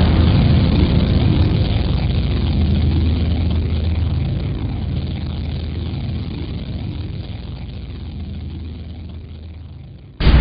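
A low, steady rumbling drone that slowly fades away over about ten seconds, broken off near the end by a sudden loud burst of sound.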